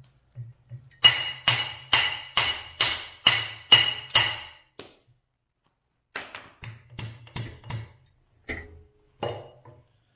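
Hammer blows on a steel steering knuckle as it is knocked onto the axle's new ball joints, which sit slightly crooked, so the knuckle has to be fought on. A quick run of about eight ringing blows, roughly two a second, comes first. After a short pause there is a lighter, more scattered series of taps.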